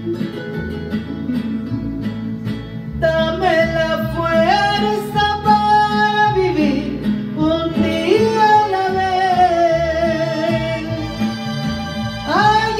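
Music: plucked acoustic guitar alone at first, then a sustained, gliding lead melody line comes in over it about three seconds in.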